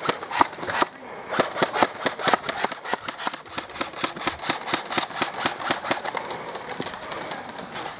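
Airsoft guns firing, a dense, irregular run of sharp shots, several a second, without pause.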